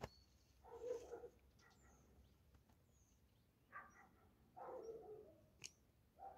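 Two short animal calls, about four seconds apart, over a quiet background with thin, high bird chirps.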